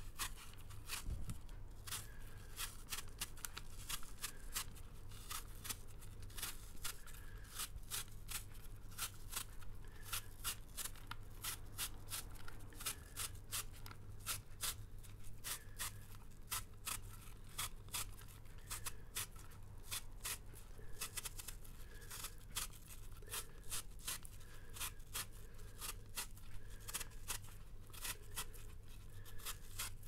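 Speed peeler shaving the skin off a Granny Smith apple: short scraping strokes in quick, uneven succession, over a low steady room hum.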